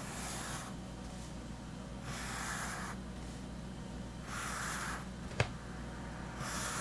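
Pencil drawing short horizontal lines on sketchbook paper: four strokes, each under a second and about two seconds apart, with a light tap about five seconds in.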